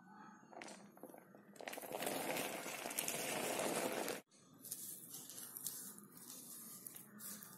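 Chopped onions and green chillies sliding off a tilted board into a bowl of thick urad dal batter, a loud rustling scrape of about two and a half seconds that stops suddenly. Then a spoon stirring them into the batter, quieter, with soft squelches and small clicks.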